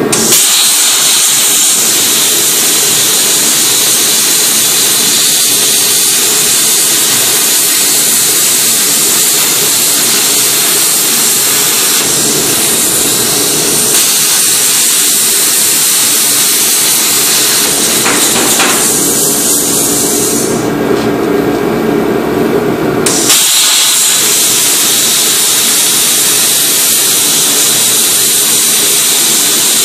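Plasma cutter torch cutting through metal plate: a loud, steady hiss of the arc and air. The cutting sound drops out for about two seconds roughly two-thirds of the way through, then resumes.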